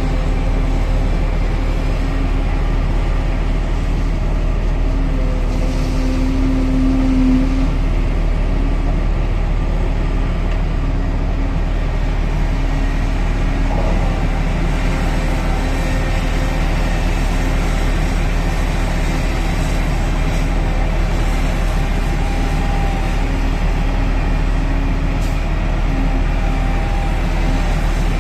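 Volvo EC950E crawler excavator working at a rock face, its heavy diesel engine running as a steady, continuous drone while the machine digs and swings. A low tone in the drone swells briefly a few seconds in.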